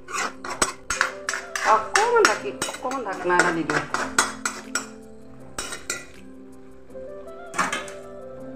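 Metal ladle scraping and clinking against a metal kadai while stirring fish pieces and greens, a quick run of strokes for about four seconds, then a couple of single knocks.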